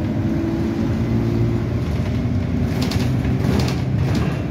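Interior of a moving Alexander Dennis Enviro200 single-deck bus: the diesel engine drones steadily under road noise. There are a few short rattles about three seconds in and again near the end.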